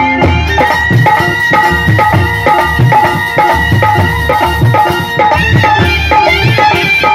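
Folk-style instrumental music with a steady drum beat, about two strokes a second, under a sustained melody line.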